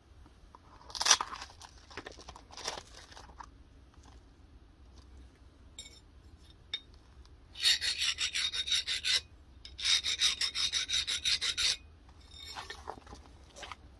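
A hardness-testing file scraped across the edge of a hardened leaf-spring steel knife blade, in two runs of quick, even back-and-forth strokes about six a second, checking how hard the steel came out of heat treatment. A sharp metal clink comes about a second in, and fainter scrapes follow near the end.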